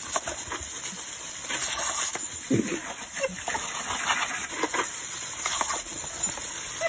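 Water jet from a garden hose spray nozzle hissing steadily, with scattered short splashes and clicks as the spray hits a dog and the paving.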